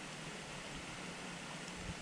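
Shallow mountain stream running over rocks: a steady, even rushing. A single soft thump comes near the end.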